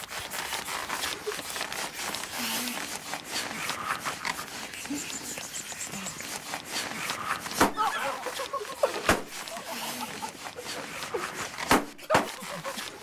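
Balloons being blown up with hand pumps bursting: four sharp pops, the first about halfway through, another a second and a half later, and two close together near the end.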